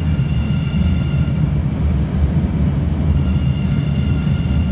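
Brand-new MBTA Red Line subway train pulling out of the station past the platform: a loud, steady low rumble of the cars rolling by, with a faint steady high whine that drops out for about a second in the middle.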